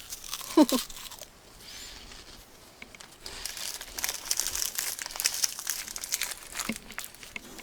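Plastic candy packet crinkling as it is handled, a dense crackling that sets in about three seconds in.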